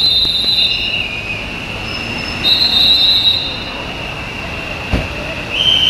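Tram wheels squealing on the rails: a steady high-pitched squeal, with three louder, higher squeals of about a second each. A short knock comes near the end.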